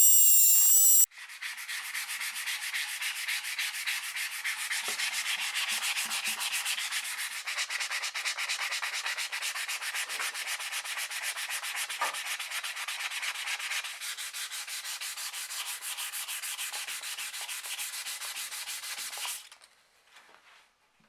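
A high-pitched power-tool whine cuts off about a second in. It is followed by steady, rapid back-and-forth hand sanding on the wooden stock of a homemade slingshot rifle, which stops shortly before the end.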